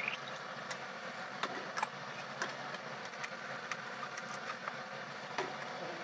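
Light clicks and taps of a plastic screw lid being set on and twisted onto a small glass jar, scattered over a steady background hiss.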